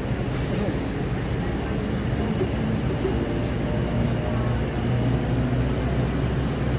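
Steady low hum of a passenger train standing at a station halt.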